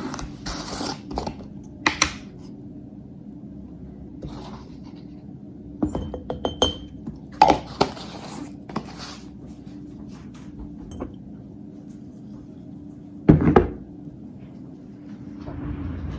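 Glassware and dishes clinking and knocking, a scatter of short clicks and taps with a louder thunk about thirteen seconds in, over a steady low hum.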